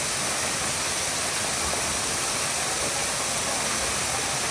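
Waterfall: a steady, unbroken hissing rush of falling water.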